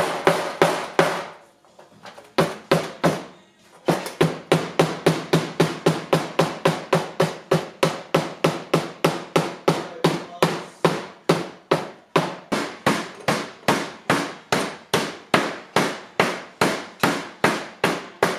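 Soft-faced mallet beating a sheet-steel car fender laid on a padded bench, about three blows a second, with a short break near the start.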